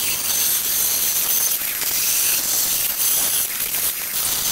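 Bandsaw running with its blade cutting a 1/4-inch bar of 80CrV2 knife steel: a steady high hiss and whine that swells and eases as the steel is pushed into the blade.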